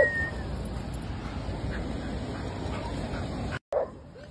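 A dog's high whine trailing off in the first half-second, then steady outdoor background noise. After a sudden break near the end comes a short bark.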